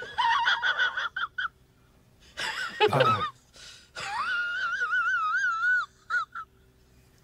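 A person's high-pitched, squeaky wheezing sounds: short squeaks at first, a sharp gasp about three seconds in, then one long squeal with a wobbling pitch.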